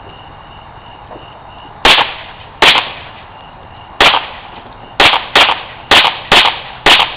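A firearm fired eight times outdoors: two shots about a second apart, a pause, then six more in a quicker, uneven string, each sharp crack followed by a short echoing tail.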